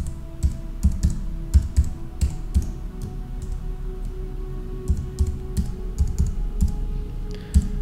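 Typing on a computer keyboard: quick, irregular keystrokes as an e-mail address is typed in.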